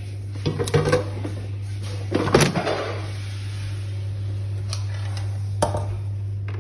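Air fryer basket being slid into the air fryer: a few plastic knocks, a louder scraping knock about two and a half seconds in, and two sharp clicks later as it seats. A steady low hum runs underneath.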